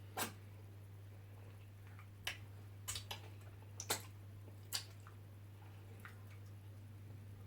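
Wet eating sounds from ogbono soup and fufu: about six short, sharp squishes and smacks in the first five seconds over a steady low hum, then only the hum.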